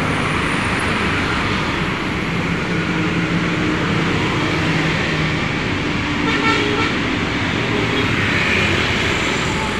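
Roadside traffic of buses, cars and motorcycles passing, with tyre and engine noise throughout. A low engine drone runs through the middle as a bus goes by, and a brief vehicle horn sounds about six and a half seconds in.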